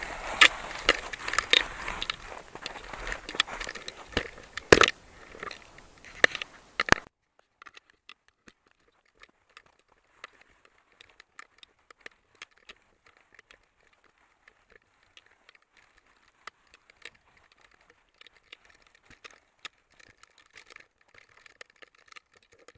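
Footsteps crunching through old, wet snow, loud and dense at first; about seven seconds in the sound drops abruptly to faint, scattered crunches.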